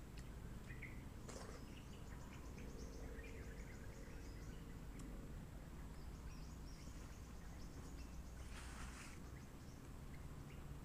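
Faint outdoor ambience: birds chirping and insects ticking in quick rhythmic runs over a steady low rumble, with two brief rustles about a second in and near the end.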